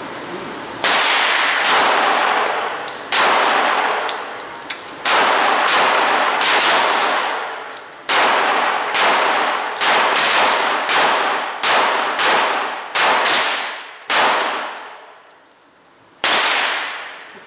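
Semi-automatic pistol fired in a string of about sixteen shots at an uneven pace, roughly half a second to two seconds apart, with the last one after a pause of about two seconds. Each shot rings on in the echo of the indoor range.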